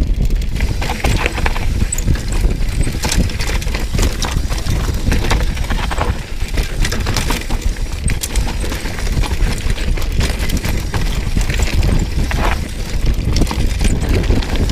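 Mountain bike descending a rocky dirt trail at speed: tyres crunching over gravel and rocks and the bike rattling with frequent irregular knocks, over a steady low rumble of wind on the microphone.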